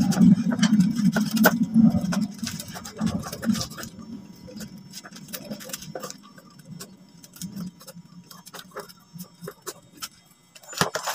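Scissors snipping through a plastic shipping bag, an irregular run of short clicks, with a low hum over the first few seconds.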